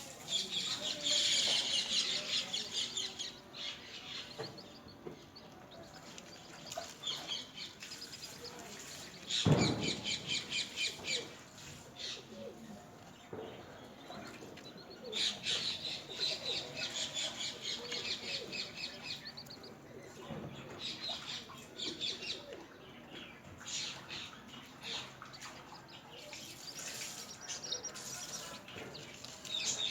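Newly hatched chicks peeping, in repeated bursts of rapid high chirps. A single low thump, the loudest sound, comes about ten seconds in.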